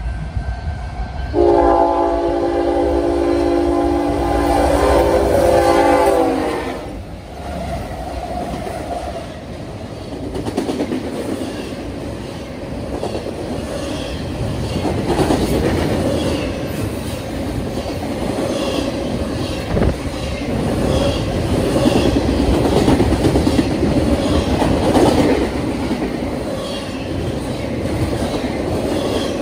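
Union Pacific locomotive air horn sounding one long multi-tone chord for about five seconds, its pitch dropping at the end as the locomotives pass. Then the steady rumble and rhythmic wheel clatter of double-stack container cars rolling by.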